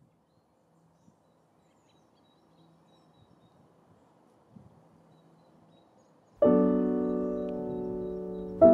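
Near silence with a few faint indistinct sounds, then about two-thirds of the way in a piano chord is struck loudly and rings down slowly, with a second chord struck near the end.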